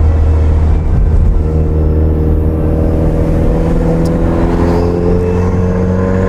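Subaru WRX turbocharged 2.0-litre flat-four with a Stage 2 tune and Tomei Ti Extreme exhaust, pulling under way. The engine note holds steady for a few seconds, then climbs steadily as the car accelerates.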